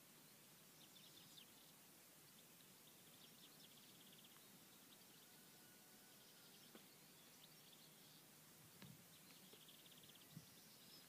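Near silence: faint outdoor ambience with distant birdsong, a few quiet chirps and rapid trills, and a couple of faint knocks near the end.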